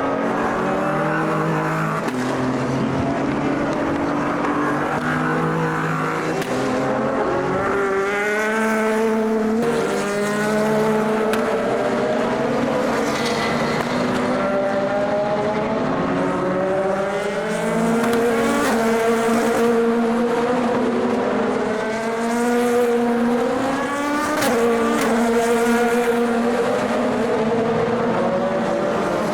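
Endurance race cars at full throttle on the circuit: engines rising in pitch and dropping back at each upshift, again and again as cars pass one after another.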